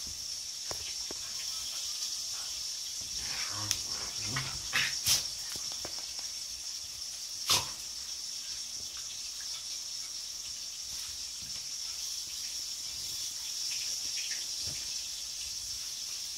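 Two dogs playing rough with a rope toy on a tiled floor: scuffling, with scattered knocks and clicks, the sharpest about five seconds and seven and a half seconds in, over a steady hiss.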